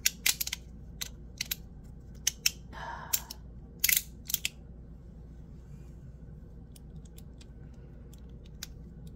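Sharp clicks from a titanium fidget slider being handled and clicked: about a dozen in the first four and a half seconds, then only a few faint ticks.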